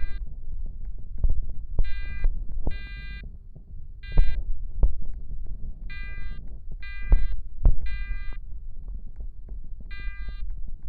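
Fire alarm horns sounding the temporal-three evacuation pattern: three short electronic beeps, a pause, then again, repeating about every four seconds. A low rumble and several sharp thumps sit underneath.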